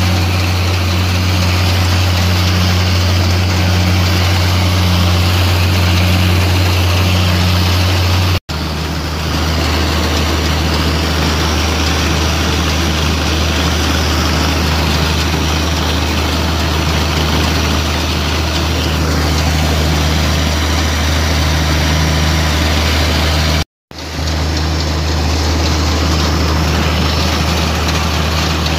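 Allis-Chalmers 190XT tractor's six-cylinder engine running steadily under load as it pulls and powers a New Holland 479 haybine through standing hay, heard close up from the tractor seat with the mower's clatter mixed in. The sound drops out briefly twice.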